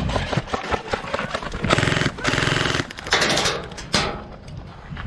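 Airsoft gun firing fully automatic: a rapid rattle of shots in two bursts, a longer one just under two seconds in and a shorter one just after three seconds.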